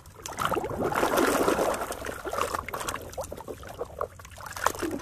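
Muddy water sloshing and splashing in a tub as a hand swishes and scrubs a toy car under the surface. The sloshing is loudest in the first couple of seconds, then breaks into smaller, separate splashes.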